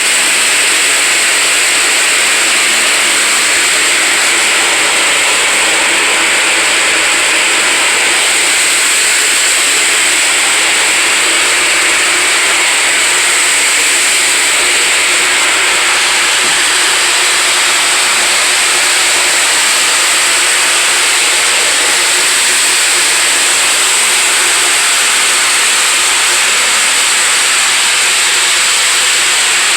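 Floor sander running steadily while sanding old carpet glue off a floor: a loud, even hiss with a steady high whine on top.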